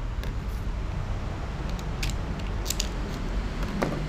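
Light clicks and crackles of a sealed plastic cup of drinking water being handled and opened, about five in all, with the sharpest one near the end, over a steady low background rumble.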